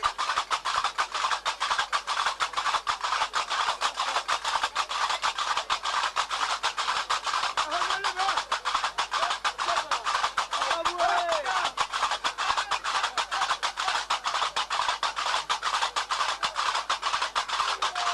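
Fast, even drumming and percussion playing a dance rhythm, with faint voices under it.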